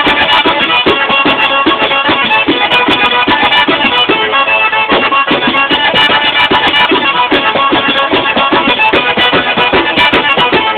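Tarantella played on a tamburello and an organetto: the frame drum's fast, steady beat and jingles under a sustained reedy melody.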